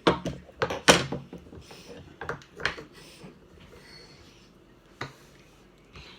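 A man sneezing, twice in quick succession in the first second, the second sneeze the loudest, followed by a few smaller sharp bursts. He puts the sneezing down to allergies rather than a cold.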